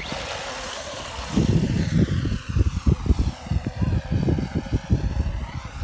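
HPI RC buggy's motor running at speed as the buggy drives off across the sand, a high-pitched whine that sweeps down and back up. From about a second in, wind buffets the microphone in heavy gusts.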